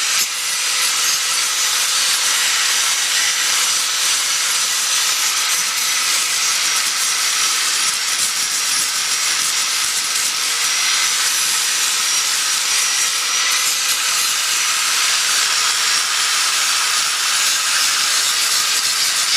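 A power tool running steadily on the truck's frame steel: a continuous hiss with faint steady whining tones and no break.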